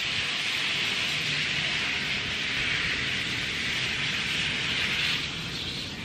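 Garden hose spray nozzle misting water over leafy plants: a steady hiss of spray on leaves that drops away about five seconds in.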